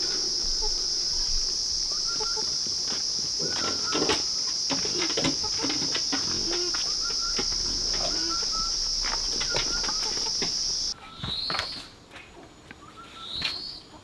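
Steady, high insect drone with scattered footsteps and short chirps, which cuts off suddenly about eleven seconds in. Then two rising whistled bird calls.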